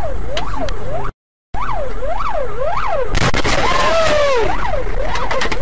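Emergency vehicle siren in a fast yelp, its pitch sweeping up and down about twice a second, with a brief cut to silence about a second in. A loud noisy rush breaks in around the middle.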